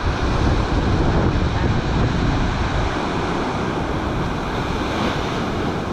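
Rough sea surf breaking on the shore in a storm, with strong wind buffeting the microphone as a gusty low rumble.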